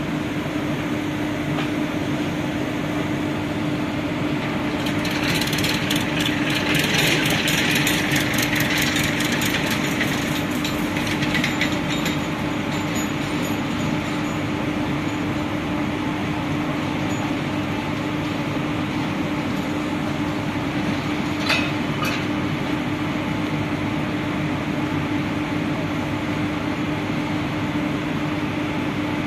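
WAG-7 electric locomotive giving a steady low machinery hum over a noisy background. About five seconds in, a rush of hissing with fast fine clicking lasts some seven seconds, and a single sharp metallic clank comes a little past twenty seconds.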